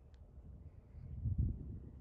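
Wind buffeting the microphone: a low, uneven rumble that swells about a second in.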